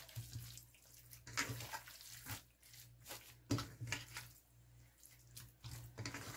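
Bare hands kneading raw chicken breasts in a stainless steel bowl, working the seasonings into the meat: faint, irregular wet squishing and slapping.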